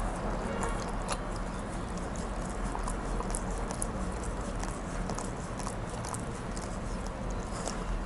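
Dog licking a glass bowl clean after a fried duck egg, its tongue and teeth making quick, irregular little clicks and smacks against the glass.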